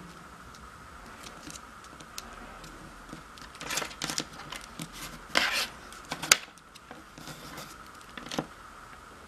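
Stiff origami paper rustling and being creased by hand, mixed with sharp taps and clicks as a plastic ruler is handled and set down on a cutting mat. The clicks come in a cluster a little before and after the middle, with one more near the end.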